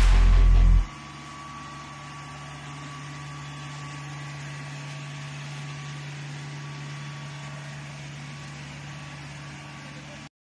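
Yanmar YH700 combine harvester's diesel engine running steadily: a constant low hum with a faint steady whine above it. Loud music with a heavy bass plays at first and cuts out about a second in, and the hum stops abruptly near the end.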